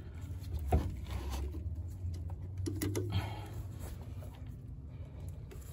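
Light metallic clicks and knocks from brake caliper parts being handled and fitted: one sharp click near the start and a few softer knocks about halfway, over a low steady hum.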